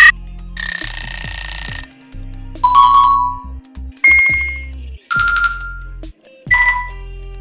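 A run of short electronic sound effects, about five one after another: ringing, alarm-like tones and dings, each lasting a second or less, some fading out. A low background music bed plays underneath.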